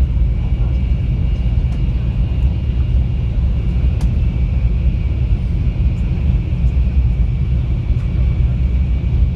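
Steady low rumble with a faint high-pitched whine held over it and a few faint clicks.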